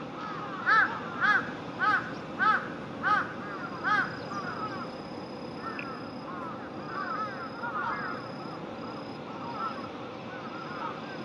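Large-billed crow cawing, six loud caws in a row about half a second apart, followed by softer chirping calls.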